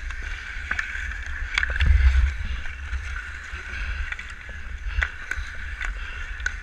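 Ice-skate blades scraping and gliding on outdoor rink ice during a pond hockey game, with wind buffeting the microphone as the skater moves, heaviest about two seconds in. A few sharp clacks of hockey sticks and puck cut through.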